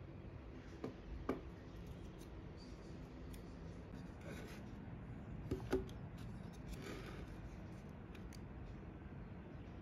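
Faint handling sounds as a sola wood flower reed diffuser is fitted into a glass bottle: two pairs of light clicks, about a second in and again about five and a half seconds in, with a couple of soft rustles between, over low room noise.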